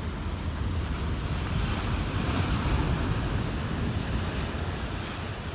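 Ocean surf washing in, with a swell of waves building about two seconds in, and wind buffeting the microphone with a low rumble.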